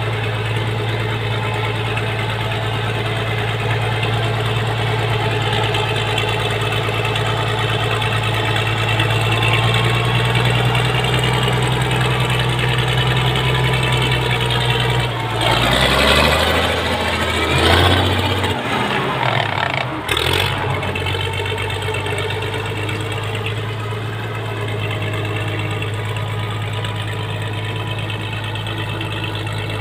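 International 676 tractor's diesel engine running steadily under load while pulling a fully loaded trailer through mud. About halfway through it gets louder and rougher for a few seconds, with a rushing noise, then settles back to a steady run.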